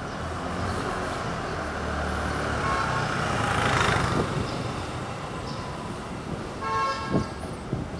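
Street traffic noise that swells about four seconds in as a vehicle passes, then a short vehicle horn toot near the end.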